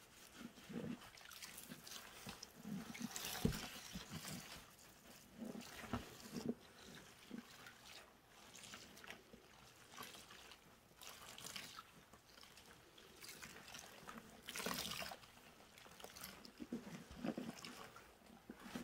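Soaked grout sponges squeezed and wrung in a tub of suds: irregular wet squelching and crunchy crackling of the foam and sponges, with water trickling and dripping back into the tub. Louder squeezes come about three and a half seconds in and again around fifteen seconds.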